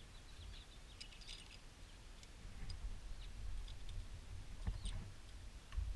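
Machined aluminum parts being handled and fitted together: scattered light clicks and taps of metal on metal.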